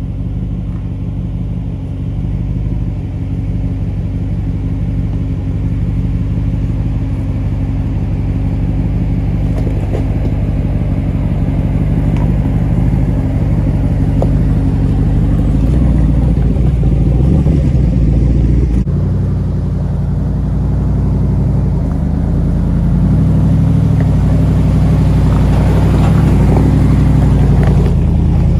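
Jeep Wrangler Rubicon 392's 6.4-litre HEMI V8, through an aftermarket exhaust, rumbling at low revs as the Jeep crawls over rocks, with scattered knocks and clatter of tyres on stone. It gets louder in the last few seconds as the Jeep comes alongside.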